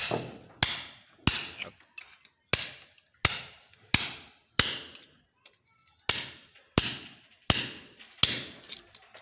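Hammer striking a steel chisel into the hard concrete wall of an underground water tank, cutting a channel for a PVC pipe. About a dozen sharp ringing blows at a steady pace of roughly three every two seconds, with a short pause a little past the middle. The wall is very hard, like rock.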